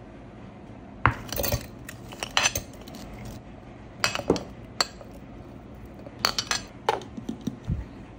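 Clinks and knocks of plates and a stainless steel mixer-grinder jar as pieces of mango and frozen pineapple are tipped into the jar, in short clusters a second or two apart.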